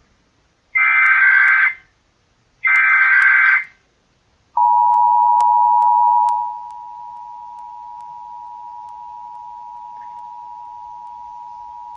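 Emergency Alert System broadcast tones: two one-second bursts of SAME header data, a warbling digital screech, then about four and a half seconds in the steady two-tone EAS attention signal (853 and 960 Hz). The attention signal is loud at first and drops to a much lower level about two seconds later.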